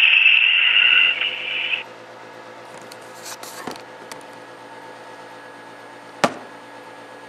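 Model diesel locomotive sound decoder's horn blowing through the model's small speaker, steady and loud, cutting off about two seconds in. After it come a faint steady hum, some brief scraping and one sharp click near the end.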